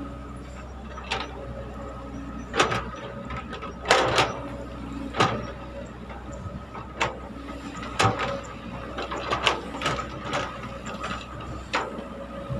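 Caterpillar hydraulic excavator digging: the diesel engine runs steadily under repeated sharp metal clanks and knocks from the bucket and arm as they work in the soil, the loudest around four seconds in.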